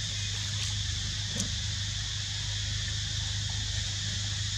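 Steady background ambience: an even, high-pitched hiss over a low steady hum, with a couple of faint clicks in the first second and a half. No monkey calls are heard.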